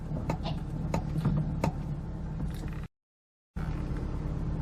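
A car engine idling with a steady low rumble, overlaid by a handful of sharp clicks and knocks in the first couple of seconds; the sound cuts out completely for about half a second partway through, then the idle resumes.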